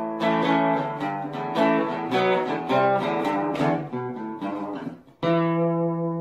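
Acoustic guitar music: a run of picked and strummed notes, then a final chord struck about five seconds in and left ringing.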